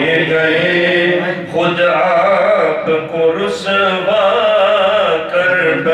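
A man singing an Urdu Sufi devotional song, drawing out long wavering notes with no clear words, broken by a few short breaths.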